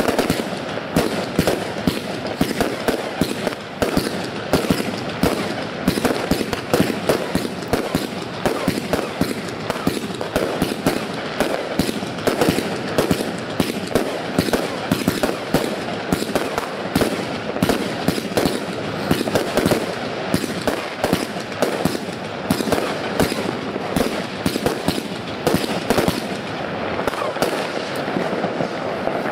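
Consumer firework batteries (cakes) firing in a dense, continuous barrage: rapid bangs and crackling, many reports a second with no break.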